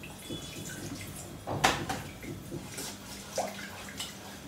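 Milk being poured into a saucepan of butter-and-flour roux while a wooden spoon stirs and scrapes the pan, with one sharp knock about a second and a half in.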